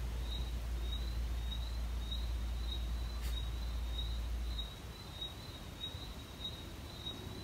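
Outdoor garden ambience: a short, high chirp repeating evenly about twice a second, over a low rumble that drops away about two-thirds of the way through.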